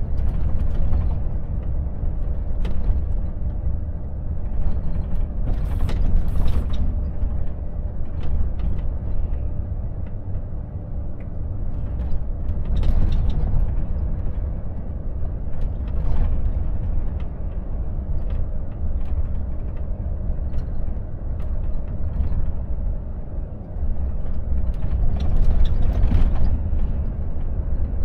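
Volvo FH truck heard from inside the cab at town speed: a steady low engine and road rumble, with scattered small clicks, rattles and creaks from the cab fittings.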